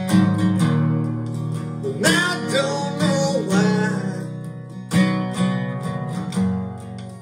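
Recorded song with acoustic guitar strumming, and a short wordless vocal phrase sliding between notes about two seconds in.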